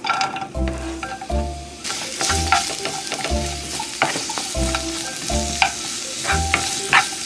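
Sliced onion and carrot sizzling in hot oil in a nonstick frying pan, stirred with a wooden spoon that clicks and scrapes against the pan. The sizzle grows louder about two seconds in.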